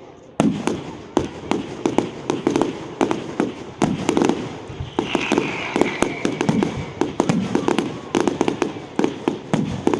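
Fireworks display: a rapid, continuous succession of sharp bangs and crackling bursts. About five seconds in, a high whistle joins them, falling slightly in pitch over about two seconds.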